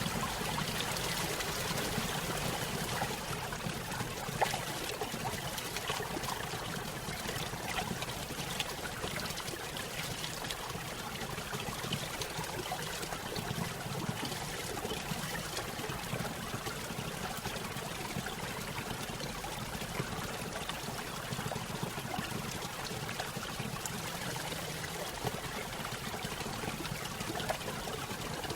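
Small stream flowing over a little waterfall: a steady trickling and splashing of water, with small irregular splashes throughout.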